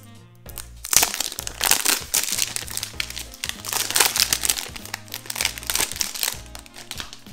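Clear plastic shrink wrap crinkling and crackling as it is stripped off a new iPhone box, starting about a second in and dying down near the end, over background music.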